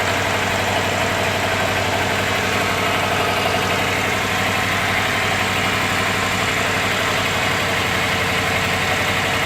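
1993 Subaru's engine idling steadily.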